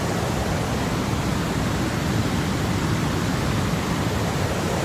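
Steady rush of water from Gullfoss waterfall, an even noise without breaks.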